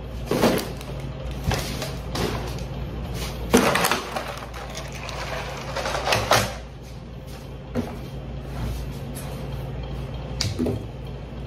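Plastic packaging being handled and moved off a table: a few scattered knocks and rustling clatters of clear plastic egg trays, a biscuit tub and snack bags. A steady low hum runs underneath.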